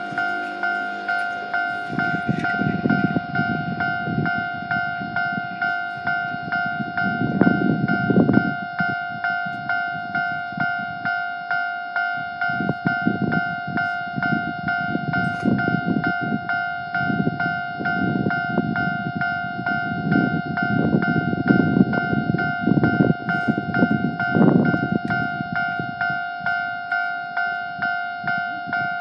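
Railway level-crossing warning bell ringing continuously, about two strikes a second, each strike fading before the next. A low rumble swells under it about eight seconds in and again after twenty seconds, louder than the bell at its peaks.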